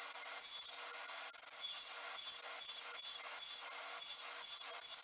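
Table saw running and cutting a lap notch across a piece of 2x6 lumber fed over the blade with the miter gauge. A steady motor hum lies under the hiss and chatter of the blade chewing through the wood.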